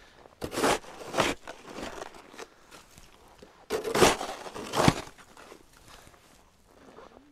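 Orange plastic snow shovel digging into deep snow, scooping and scraping with crunching strokes: a pair about a second in and another pair around four seconds in.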